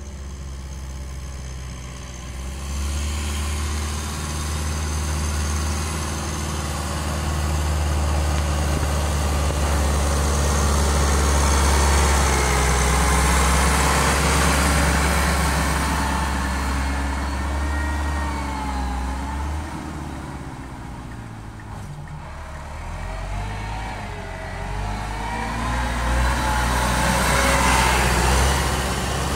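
Massey Ferguson 385 tractor's four-cylinder diesel engine working under load as it pushes sand, its pitch rising and falling. It swells louder in the middle and again near the end, and dips in between.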